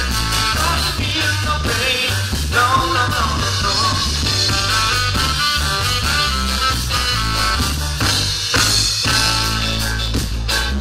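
Live band playing an upbeat ska groove, with drum kit, bass guitar, electric guitar, keyboard and saxophone.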